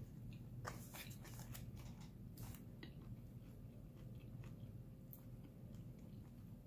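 Close, faint chewing of crispy fried-rice salad with sour pork sausage: scattered small crunches and clicks, thickest in the first three seconds, over a low steady hum.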